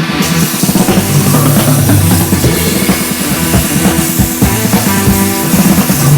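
Rock music with drums and a steady beat.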